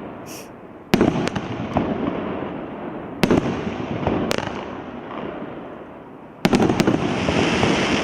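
Small consumer firework battery (cake) firing: sharp shell bursts about one, three, four and six and a half seconds in, each trailing off in crackle, with a hissing crackle swelling near the end.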